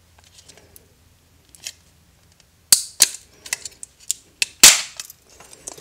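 Sharp plastic clicks and snaps from a power bank's plastic housing as it is flexed and worked by hand to free the battery pack, its retaining tabs already broken off. The first half is nearly quiet with faint ticks; from about halfway a run of separate snaps follows, the loudest near the end.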